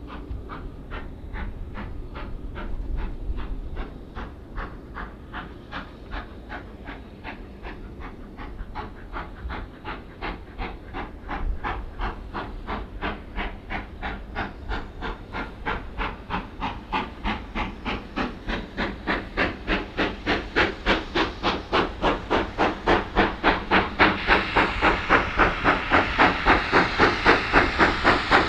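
Four-cylinder GWR King class steam locomotive No. 6023 King Edward II working a train, its exhaust beating in a steady rhythm over hissing steam. The beats grow louder as it approaches.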